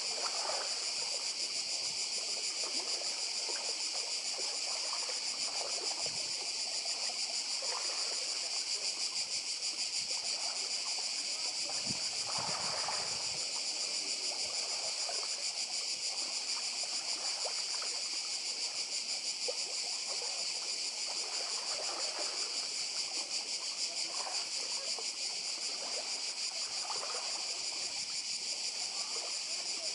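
A dense chorus of cicadas buzzing steadily at a high pitch, with a fine rapid pulsing. Beneath it, small waves lap faintly against the stones of the shore, with one slightly fuller wash about twelve seconds in.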